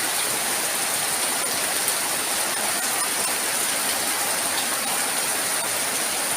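Rain pouring down in a windstorm, a dense, steady hiss with a thin steady high tone running over it.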